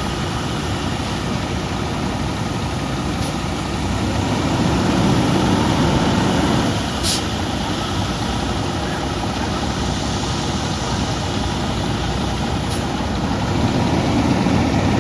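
Diesel engine of a ready-mix concrete truck running steadily during the pour, swelling a little twice.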